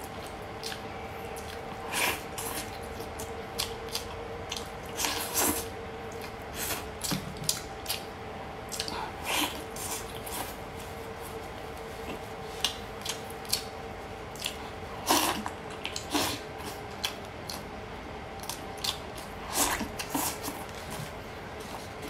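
Close-up eating sounds: a cooked chicken leg being torn apart by hand and chewed, with scattered short wet smacks and crackles. A steady faint hum sits underneath.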